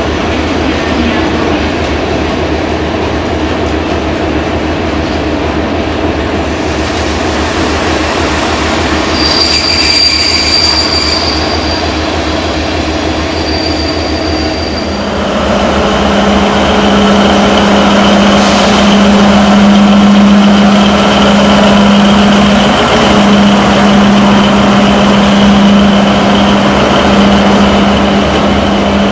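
Passenger coaches rolling slowly past during shunting, with a brief high-pitched wheel squeal about nine seconds in. About halfway through, a CFR LDH diesel-hydraulic shunting locomotive draws close, and its engine and transmission take over as a louder, steady low hum with a thin whine above it.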